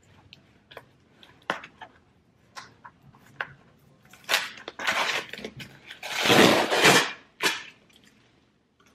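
A cardboard box being opened by hand: light taps and rustles, then several ripping tears of tape and packaging, the longest and loudest one a little past the middle.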